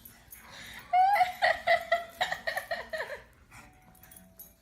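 A person laughing, a quick run of laughs starting about a second in and dying away after about two seconds.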